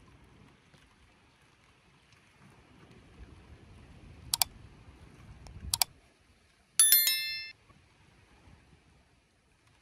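Two sharp clicks about a second and a half apart, then a short bright metallic ring, like a small bell, that dies away in under a second, over a faint low rumble.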